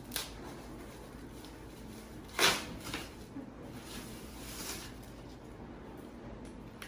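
Handling noise from a small handbag being moved about and shown: a short click at the start, a louder scraping rattle about two and a half seconds in with a smaller click just after, and a softer rustle a couple of seconds later.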